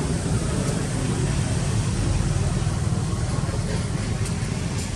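Steady low rumbling outdoor background noise, with a few faint high ticks near the end.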